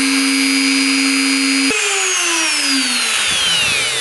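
Mini CNC router spindle running steadily, then switched off a little under two seconds in, its whine falling in pitch as it spins down.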